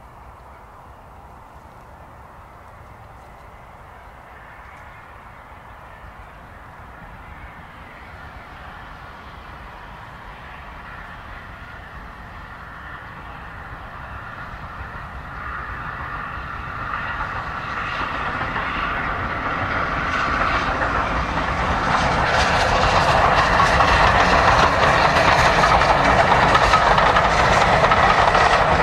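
Steam locomotive LNER Peppercorn A1 60163 Tornado and its train coasting downhill, not working steam. The rolling noise grows steadily louder as it approaches, with the clickety-clack of wheels over the rails coming through in the last several seconds.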